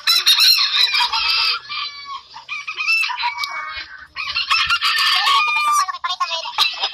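Several gamefowl roosters crowing over one another, with clucking between the crows.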